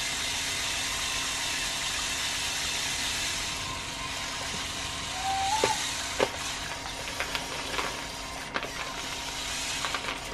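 LEGO Technic electric motors running steadily, driving the excavator's linear actuators to move its boom and arm. From about halfway on, the motor noise is broken by scattered sharp clicks as the bucket scrapes and rattles through dried beans.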